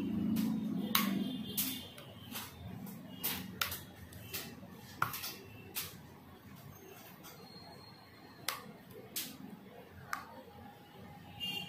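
Sharp, irregular plastic clicks and snaps as a thin metal blade is worked along the seam of a Zebronics ZEB-MC6000 power bank's plastic case, prying the glued halves apart.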